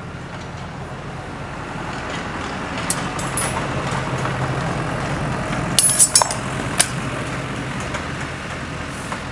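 Steel training swords and bucklers clashing: a few sharp metallic clinks about three seconds in, and a quick cluster of ringing clashes around six seconds in, the loudest sounds here. Under them a tractor engine hums steadily, building and then easing off.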